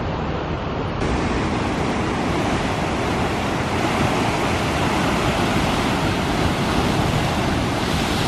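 Heavy ocean surf breaking and churning over rocks below a cliff: a steady rush of white water that grows louder and fuller about a second in.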